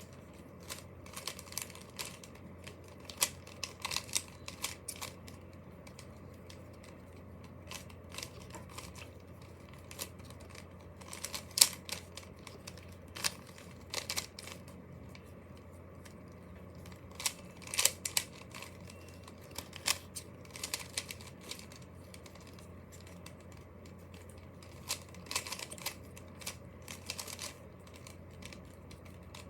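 Plastic Rubik's cube layers clicking as they are twisted, in irregular bursts of quick turns with short pauses between. The sharpest clicks come about eleven and eighteen seconds in.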